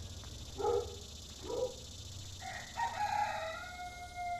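A rooster crows once, a long drawn-out crow that falls slightly at its end, after two short calls about a second apart.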